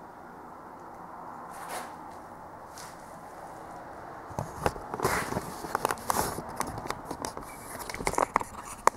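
Drill press fitted with a tapping head, running with a faint hum, then irregular sharp clicks and knocks from about four and a half seconds in that grow busier toward the end.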